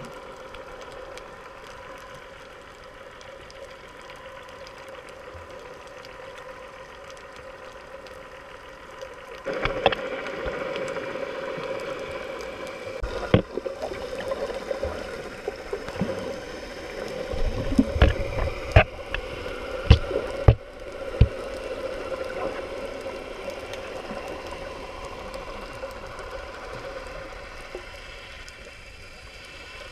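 Muffled underwater sound heard through a GoPro Hero 3+ waterproof housing: a steady water noise with a constant low hum, getting louder about ten seconds in. Several sharp knocks come in the middle stretch.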